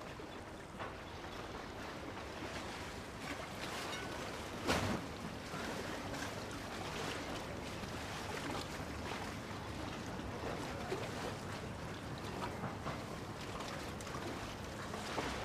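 Steady outdoor ambience of sea water and wind, with a short, louder noise about five seconds in.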